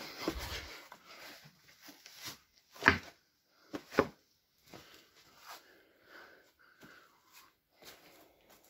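Someone climbing down over loose, broken rock: scuffing and crunching steps, with two sharp knocks of shoe or rock on stone about three and four seconds in, and smaller clicks of shifting stones.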